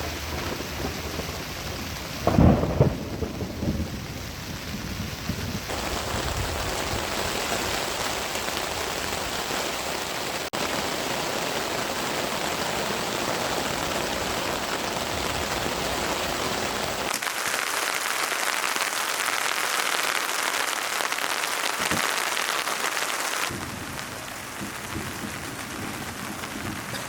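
Steady heavy rain, with a loud low rumble of thunder a couple of seconds in. The rain's sound changes abruptly several times.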